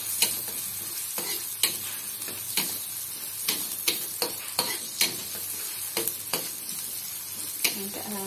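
Sliced shallots and garlic sizzling in hot oil in a wok while being sautéed until soft and fragrant, with a spatula stirring them and scraping and tapping against the pan a dozen or so times at irregular intervals.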